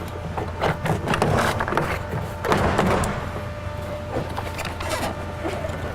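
Plastic retaining clips of a 2007 GMC Yukon front door trim panel snapping loose as the panel is pried off the door with a plastic trim tool. A run of sharp snaps and knocks, most of them in the first three seconds, with the panel creaking and rubbing between them.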